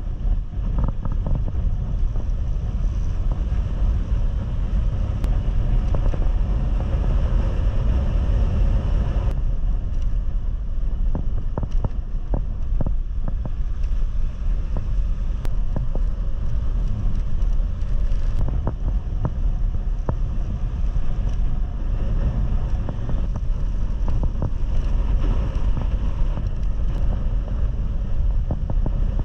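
Wind rushing over the microphone of a camera on a moving motorcycle, a steady low rumble with the bike's engine and tyre noise beneath it. Through the middle, a run of sharp knocks and rattles as the bike rides over cobbled paving.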